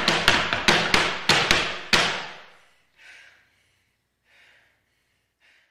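Two pairs of cowboy boots stamping folklorico zapateado on low boxes: a quick run of sharp strikes that stops about two seconds in and rings off in the room. After that, a few faint soft sounds.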